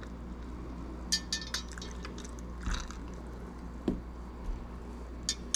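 Dark rum floated from a metal jigger onto cracked ice in a mug: a scatter of small drips and ice ticks, then a short splash. About four seconds in there is a single soft knock as the jigger is set down on the rubber bar mat.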